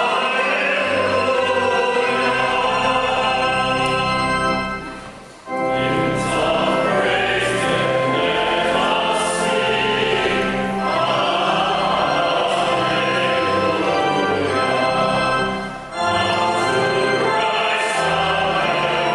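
Choral music: a choir singing slow, sustained phrases, with two short breaks between phrases, about five seconds in and again near sixteen seconds.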